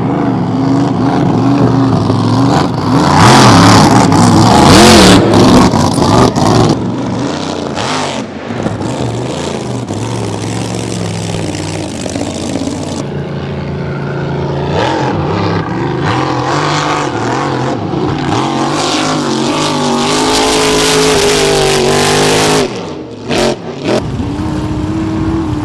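Supercharged alcohol-burning engines of flatbottom K boats running at full throttle past the camera, several boats in turn. The pitch rises and falls as they accelerate and go by; loudest a few seconds in.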